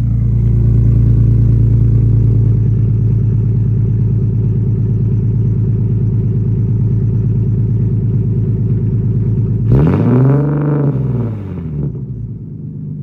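Nissan Z's V6 idling through an exhaust with test pipes and a Y-pipe. It is blipped once about ten seconds in: the pitch climbs and falls back over about two seconds, then it settles to a slightly quieter idle.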